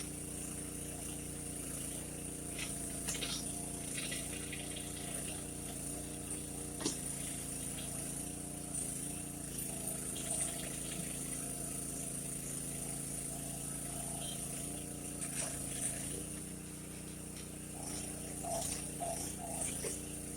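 Engine running steadily as it drives a hydraulic mini backhoe at work, with scattered clanks and knocks from the digging. The engine note shifts briefly near the end.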